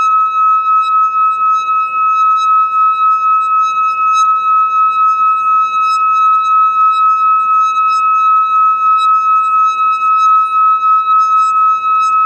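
A metal singing bowl sung by rubbing its rim with a stick: one steady high ringing tone that wavers gently in loudness about three times a second, over the faint rush of a river.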